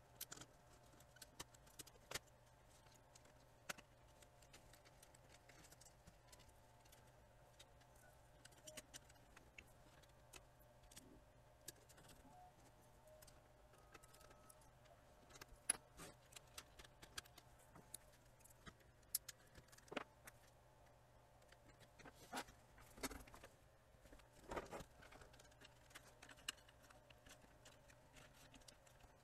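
Faint, scattered clicks and taps of a circuit board and plastic case being handled and fitted together while a Sony DVP-FX980 portable DVD player is reassembled, over near silence.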